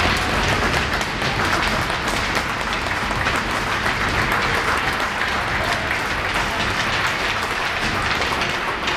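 Spectators applauding steadily, many hands clapping, as an injured youth hockey player is helped up off the ice.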